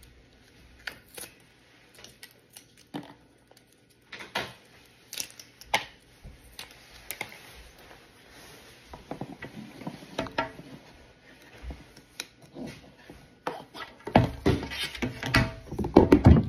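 Scattered clicks and crinkles of clear plastic packaging film being pulled off and handled, with a louder run of knocks and rustles in the last two or three seconds as the packaging and tablet are handled.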